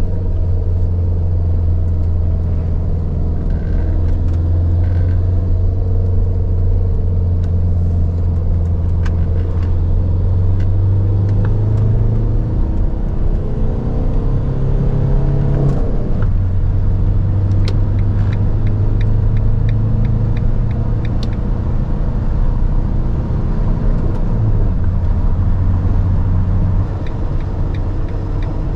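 Fiat Ducato's 2.3-litre four-cylinder turbodiesel pulling hard under full acceleration, heard from inside the cab with road and wind noise. The engine note climbs, then drops sharply at an upshift about sixteen seconds in, and drops again near the end.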